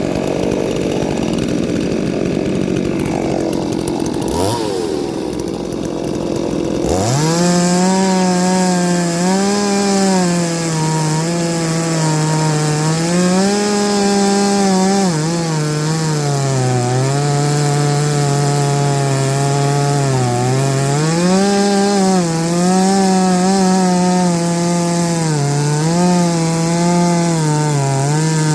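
Ported two-stroke chainsaw cutting wood under load, its engine pitch sagging and recovering again and again as the chain bites. For the first seven seconds a dense rasping noise covers the engine; after that the engine note comes through clearly.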